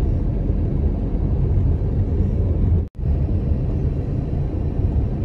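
Steady low road and engine rumble of a moving car, heard from inside the cabin, with a sudden brief drop-out about three seconds in.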